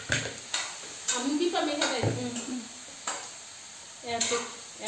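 Kitchen knife cutting and scraping through papaya peel in a series of short strokes.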